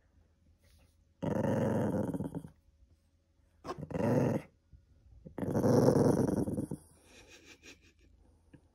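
A small poodle growls three times, each growl a second or so long, the third the longest and loudest, as a hand touches its head: resource guarding, warning off the hand from something it won't give up.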